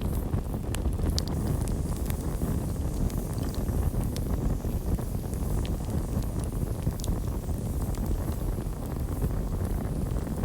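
Campfire burning with a steady low rumble and scattered sharp crackles and pops from the burning wood.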